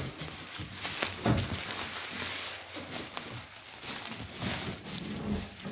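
Irregular rustling and scraping in dry leaves with occasional knocks, as crested porcupines shuffle about and their wire-mesh cages are shaken and tipped to get them out.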